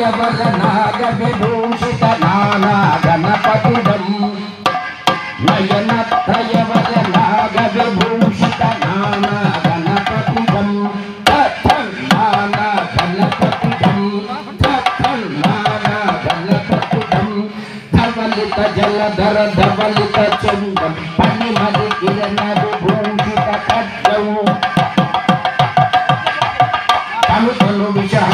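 Instrumental music: quick, dense hand-drum strokes over a steady low drone.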